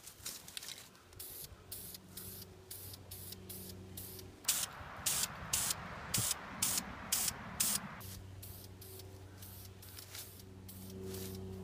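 Aerosol spray can being sprayed in many short, sharp hissing bursts. The bursts come fastest and loudest in the middle, about two a second, over a continuous hiss.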